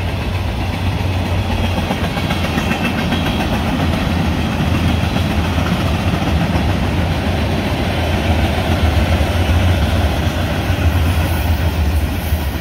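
Freight cars of a mixed freight train rolling past: a loud, steady rumble of steel wheels on the rails.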